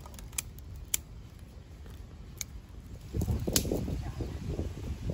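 A few sharp, separate clicks or cracks, about four in all, then a low, uneven rumbling noise from about three seconds in.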